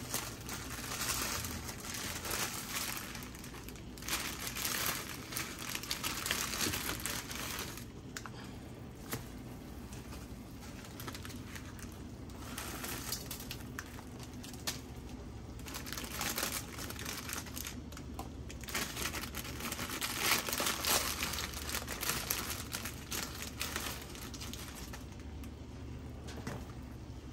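Plastic packaging crinkling as it is handled, in repeated bouts a second or several long with short pauses between, and some tearing.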